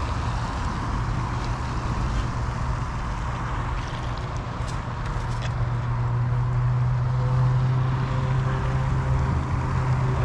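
A steady low engine hum, growing louder about halfway through, with a few faint clicks in the middle.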